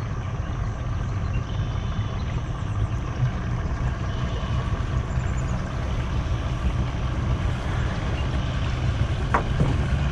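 Boat outboard motor running steadily at low speed, a low hum under a rough wash of noise.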